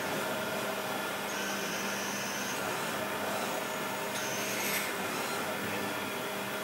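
CNC milling machine running behind its closed enclosure: a steady whir of the spindle and cutter working the workpiece, with a faint hum underneath and a higher-pitched note that comes and goes twice.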